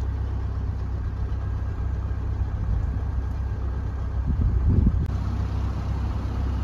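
Narrowboat engine running steadily at low revs, a constant low hum with a brief swell about four seconds in.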